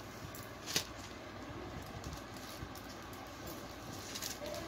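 Cloth being handled and unfolded, a soft rustle of satin fabric, with one sharp click about a second in.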